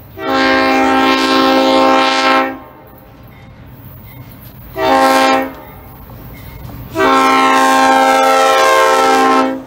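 GE B36-7 diesel locomotive's multi-tone air horn sounding for a grade crossing: a long blast of about two seconds, a short blast midway, then another long blast held until near the end, over the rumble of the approaching train.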